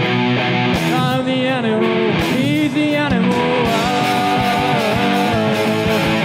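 Live rock band playing: electric guitar and drums, with a voice singing a melody that starts about a second in.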